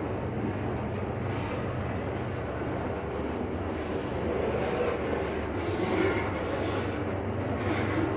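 Loaded iron-ore freight train passing at low speed: a steady rumble of wagons on the rails over a low diesel drone, with brief brighter rubbing squeals of wheels on rail about six and eight seconds in.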